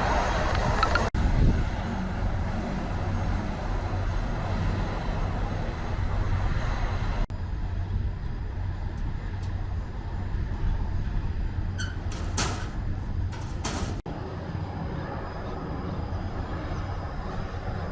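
Steady low rumble of a running vehicle engine, with a few short clicks about two-thirds through.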